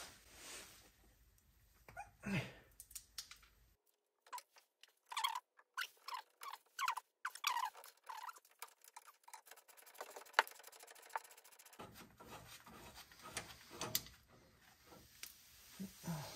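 Hand ratchet wrench clicking in short strokes, with small metal scrapes, as a bolt on a truck's front sway bar mount is turned.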